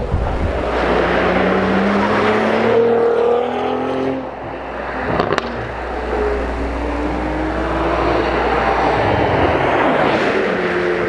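Cadillac CT4-V Blackwing's 3.6-litre twin-turbo V6 under hard acceleration, its note climbing through the revs. It breaks off about four seconds in, with a sharp crack a second later, then climbs again and shifts near the end.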